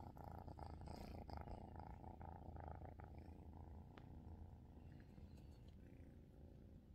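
Kitten purring steadily and faintly, a sign of contentment; the purr is stronger in the first three seconds and softens after. A few soft clicks sound over it early on.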